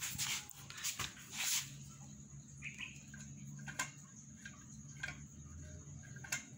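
Faint scattered clicks and light knocks from a steel foot pedal and its bolted pivot linkage being worked by hand, over a faint low hum.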